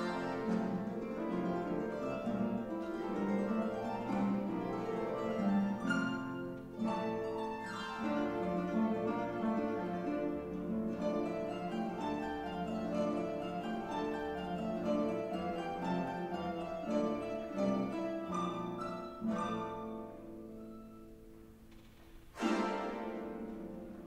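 Paraguayan harp played solo in a fast, continuous run of plucked notes and chords. The playing softens about twenty seconds in, then a loud full chord is struck near the end.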